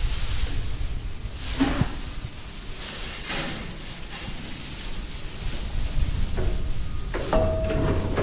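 Rustling and scuffing of straw bedding with handling noise on a body-worn GoPro, a few short knocks, and two brief squeaks, one about one and a half seconds in and one near the end.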